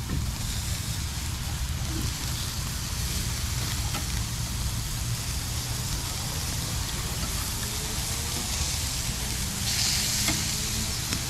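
Burgers sizzling on a grill over a fire pit, a steady frying hiss that swells briefly near the end, over a low rumble.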